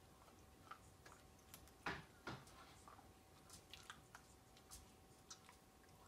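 Siberian husky chewing a tough, jerky-like beef treat: faint scattered clicks and crunches, with two louder ones about two seconds in.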